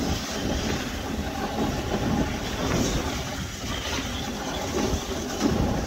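Dog sled moving over snow: a steady, uneven rumble and scrape from the runners.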